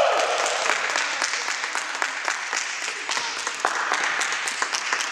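Applause: many hands clapping, with sharp individual claps over the general clatter, slowly dying down.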